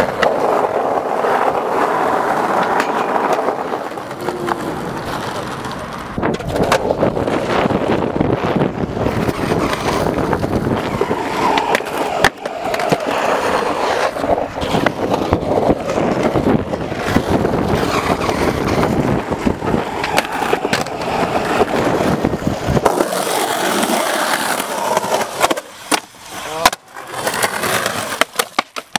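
Skateboard wheels rolling over rough asphalt and concrete, a continuous gritty rumble scattered with board clacks and landing impacts. The sound changes abruptly several times, and near the end the rolling thins out into separate sharp hits.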